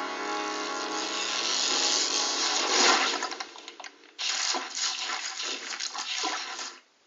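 Cartoon soundtrack audio mangled by heavy audio effects. A harsh, buzzing tone with many even overtones lasts about three seconds, then turns to rough noise that cuts out briefly about four seconds in and returns choppy.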